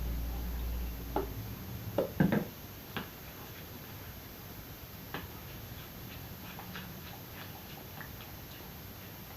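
Slime being stirred in a bowl: a low hum that stops about a second and a half in, a few knocks around two seconds in, then light, irregular clicking taps several times a second.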